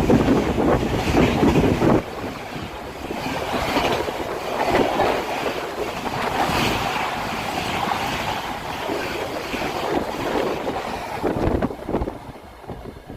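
Express train passing at high speed, a loud rush of wheels and air with heavy wind buffeting on the microphone; the low rumble drops away about two seconds in, leaving a lighter rushing noise that fades near the end.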